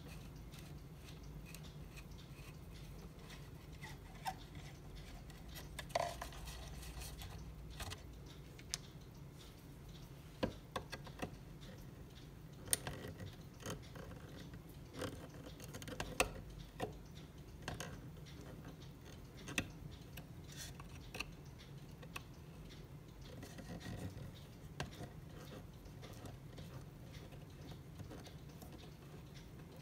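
Screwdriver turning out small screws from a wooden cuckoo clock case: sparse, irregular small clicks and scrapes of metal on screw heads and wood as the parts are handled.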